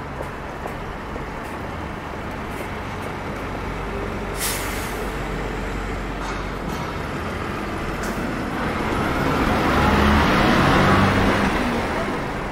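City street traffic: a short hiss of air brakes about four and a half seconds in, then a heavy vehicle's engine grows louder as it passes close and fades away near the end.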